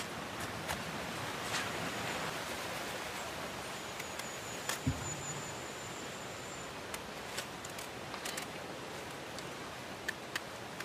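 Steady outdoor hiss with scattered small clicks and scrapes of a knife cutting breadfruit and peeling green bananas, and one dull thud about five seconds in. A faint, thin, high whistle is heard for a couple of seconds in the middle.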